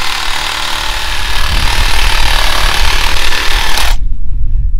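A handheld power tool cutting through a sagebrush bush at its base, running steadily and then cutting off abruptly about four seconds in.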